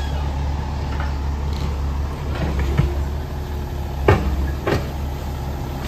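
Heavy diesel machinery running steadily with a low engine hum, and a few short knocks and clunks about three to five seconds in.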